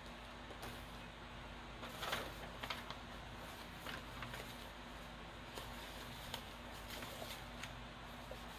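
Faint rustling with a few light ticks and taps, someone rummaging through things to find a card, over a low steady hum.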